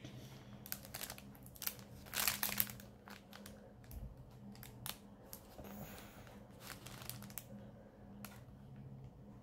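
Plastic packaging rustling and crinkling as it is handled, in short irregular bursts, loudest a little over two seconds in, over a faint steady low hum.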